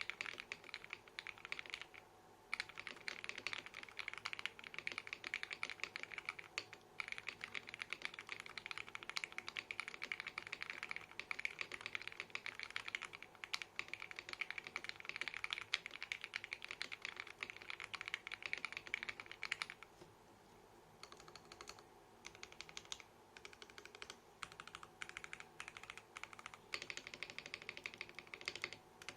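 Typing on an RK61 mechanical keyboard with lubed Akko Radiant Red linear switches and PBT keycaps, gummy-mounted with PE foam and tape mods. A fast, dense stream of keystrokes with a brief pause near the start, thinning to shorter bursts with gaps after about twenty seconds.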